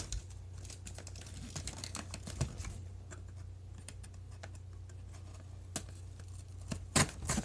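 Scattered light clicks and taps of small plastic items and packaging being handled, with a sharper cluster of clicks near the end.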